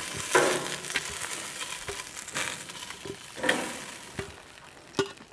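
Oxtail pieces sizzling in a hot roasting pan, seared brown, with metal tongs clinking against the pan and a stainless steel bowl as the pieces are lifted out. The sizzle fades near the end.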